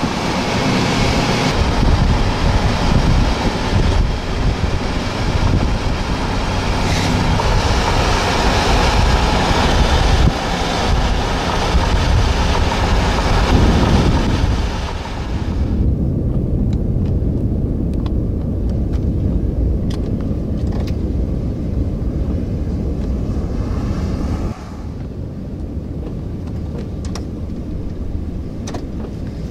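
Strong storm wind buffeting the microphone: a loud, gusty rushing noise that turns abruptly to a duller, deeper rumble about halfway through and drops a little in level near the end.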